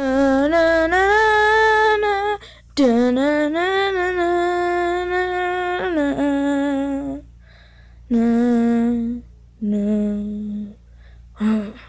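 A voice humming a slow tune in long held notes, in several phrases broken by short pauses.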